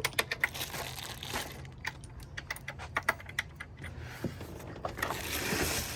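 Irregular light metallic clicks and clinks of small metal parts being handled during work on the engine, over a faint steady low hum.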